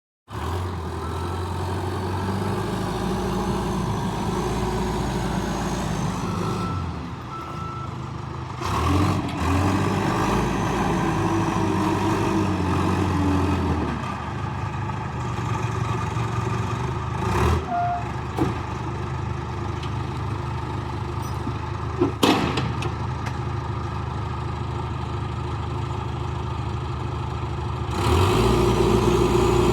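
John Deere 310SE loader backhoe's diesel engine running, its note and loudness shifting several times as throttle or load changes, with a short sharp click about two-thirds of the way through.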